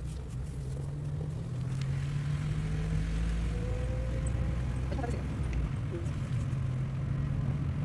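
Volkswagen car's engine running at low speed, heard from inside the cabin as a steady low hum with a deeper rumble beneath it.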